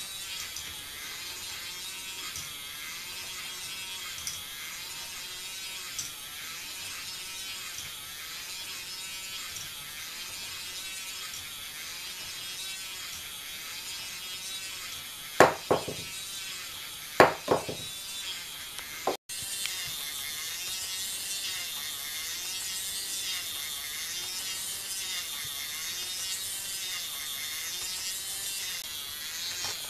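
K'nex motor driving a plastic jigsaw ball lift: a steady whirring buzz of the motor and plastic gears. A few loud sharp plastic clacks come in quick pairs about halfway through.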